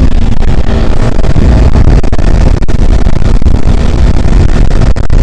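Kawasaki ZX-10R sport bike on the move, its stock-exhaust inline-four engine running loud and steady under a dense low rumble.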